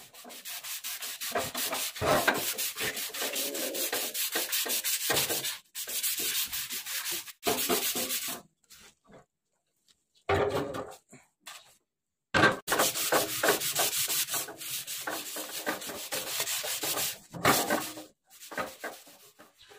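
Sandpaper rubbed by hand over the primer-coated steel fuel tank of a Honda CG125, in quick back-and-forth strokes. The strokes come in several spells with short pauses between them.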